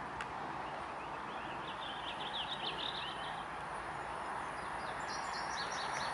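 An approaching MARC commuter train, a steady rumble that slowly builds, while a songbird chirps in quick runs about two seconds in and again near the end.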